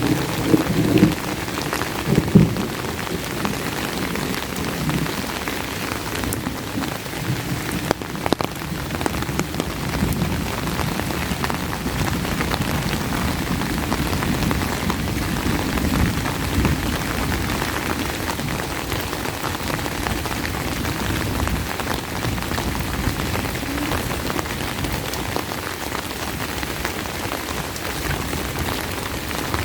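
Steady rain falling, with the tail of a thunder rumble dying away in the first couple of seconds.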